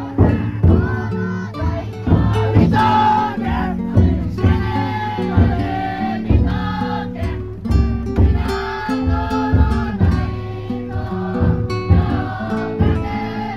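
Futon daiko float's drum beaten in a steady, even rhythm, about three beats every two seconds, under a crowd of bearers and the children riding the float singing its festival song together.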